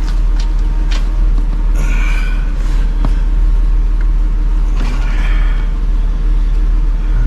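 Steady low rumble under a few sharp clicks and squeaky rubbing of parts being handled while a parking brake switch is fitted into the car's center console.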